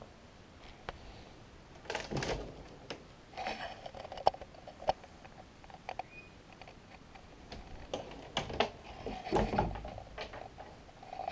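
Scattered clicks and knocks with a few brief rustling scrapes as a louvered bifold closet door is handled and opened; the sharpest knocks come about four and five seconds in.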